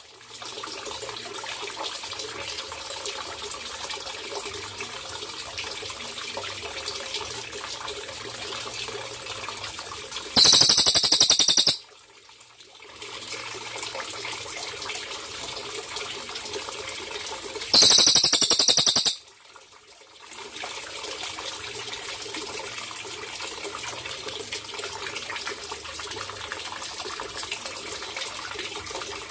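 Steady trickling water, broken twice by a loud, high-pitched song phrase from a cililin bird, about ten and eighteen seconds in, each lasting about a second and a half.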